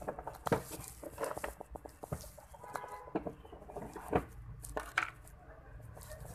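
Fishing gear being handled on a tiled floor: scattered soft knocks and rustles from camouflage rod bags and a plastic box. A few short animal calls sound in the background, once near the middle and again about five seconds in.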